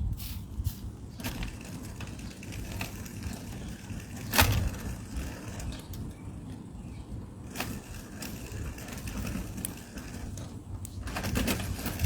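Bicycle being ridden over rough ground: a steady rumble of tyres with scattered clicks and rattles from the bike, and a sharper knock about four and a half seconds in.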